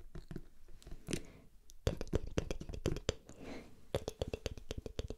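Long fingernails tapping on a hardcover book's cover. The quick clicks grow into a dense, fast run about two seconds in.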